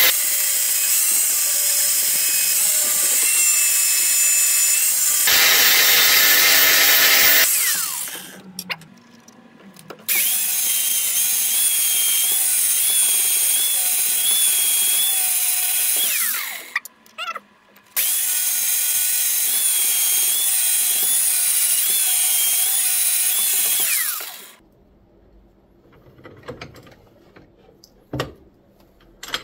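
Angle grinder grinding a cast-iron pipe end cap held in a vise: a loud high whine whose pitch wavers under load, in three runs of about six to seven seconds each with short pauses between. After about 24 seconds the grinder stops, leaving only faint clicks and handling.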